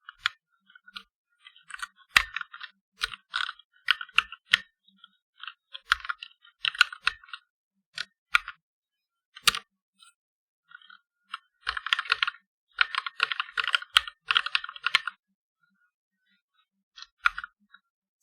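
Typing on a Chinese-made mechanical keyboard with red linear switches: quick runs of key clicks in bursts, broken by short pauses, with a few sharper, louder keystrokes.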